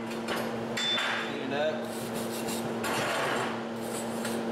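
Steel plate being handled and rubbed metal on metal, with irregular scraping and shuffling as the small 1/4-inch plate box is moved, over a steady low hum.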